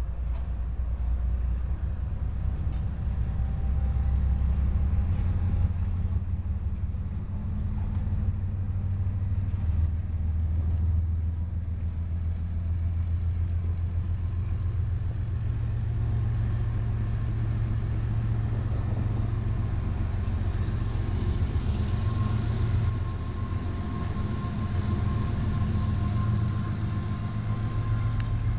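Norfolk Southern GE diesel locomotives, Dash 9-40Cs among them, passing with a steady deep engine rumble. A faint thin whine sits above the rumble through the second half.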